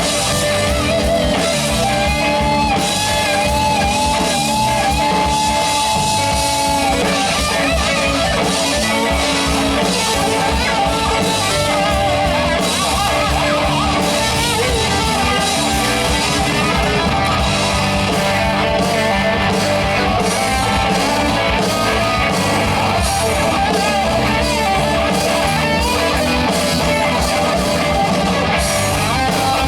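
Rock band playing, with guitar and drum kit. About two seconds in, a long note with vibrato is held for some five seconds over the band.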